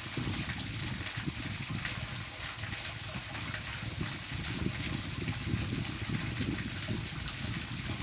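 Steady rain falling, an even dense hiss, with a low rumble underneath.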